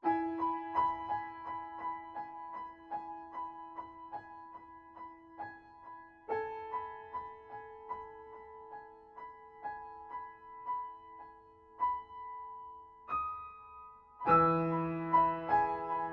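Background piano music: single notes struck in a steady pattern over held chords, the chord changing about six seconds in and the music growing fuller and louder near the end.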